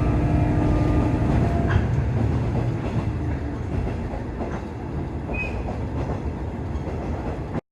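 Iiyama Line train running on the rails, its wheels clacking over the rail joints, the noise slowly easing off before it cuts off suddenly at the very end.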